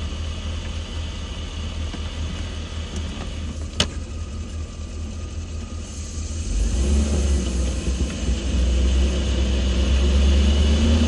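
Chevrolet Silverado 2500HD's 6.0-litre LQ4 V8 running, growing louder from a little past halfway as it pulls harder. A single sharp click or knock comes just before four seconds in.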